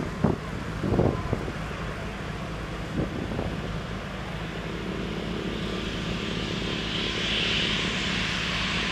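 Jet airliner's twin turbofan engines running as it rolls along the runway, growing louder, with a high whine building from about halfway through. A few thumps sound in the first three seconds.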